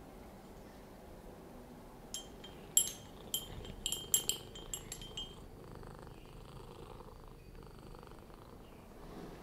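Domestic cat purring steadily, with a quick run of about ten light, ringing clinks starting about two seconds in and lasting about three seconds.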